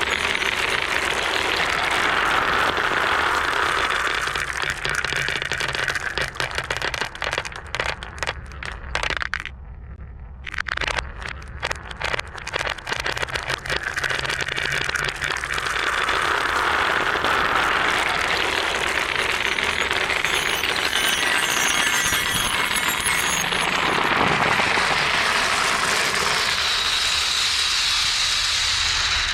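Marbles rolling along a wooden marble run: a steady rolling rattle, broken in the middle by a run of separate clicks and clacks and a brief lull about ten seconds in.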